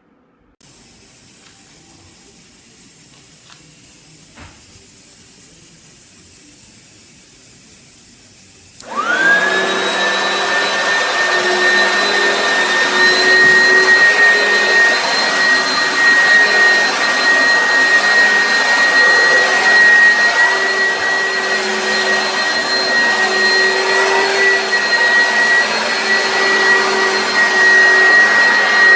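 Oreck upright vacuum cleaner switched on: after a few faint clicks, its motor starts about nine seconds in, winds up within a second to a high whine and runs steadily and loudly.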